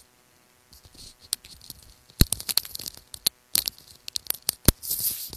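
Handling noise close to the microphone: an irregular run of sharp clicks, taps and scrapes as hands work near the phone. The loudest clicks come about two seconds in and again near the end.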